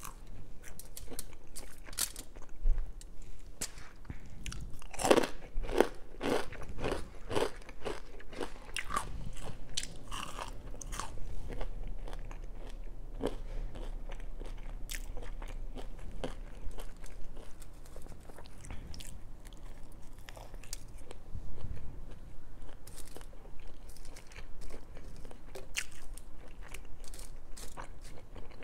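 Close-miked chewing and crunching of breaded vegan chicken tenders and crinkle fries. The crisp crunches come thickest about five to eleven seconds in, with quieter chewing after.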